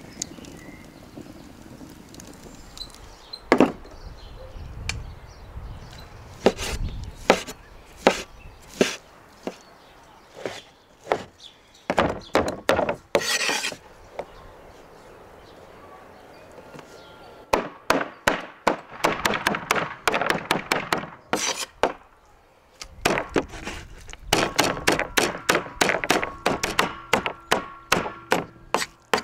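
Cleaver chopping cooked meat on a wooden cutting board: sharp knocks, scattered at first, then fast runs of rapid strikes in the second half.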